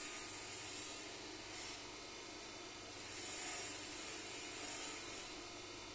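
Faint steady hiss with a low hum underneath: workshop background noise, with a few soft swells of noise and no distinct clicks or knocks.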